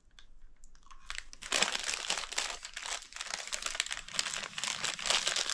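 Paper candy bag crinkling as it is handled, with a few faint ticks at first and steady dense crackling from about a second and a half in.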